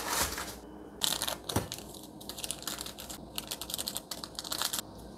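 Thin plastic seasoning sachets from an instant mi goreng pack being torn open and squeezed, a dense run of crisp crinkling and crackling that stops shortly before the end. A short rush of noise comes right at the start.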